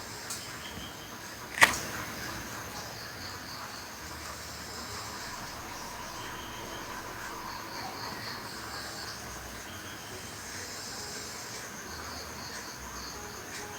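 Insects chirping steadily at a high pitch over a low hiss, with one sharp click about a second and a half in.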